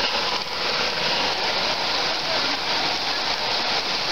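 O-gauge three-rail model steam locomotive and passenger cars running along the track, heard against a steady background din.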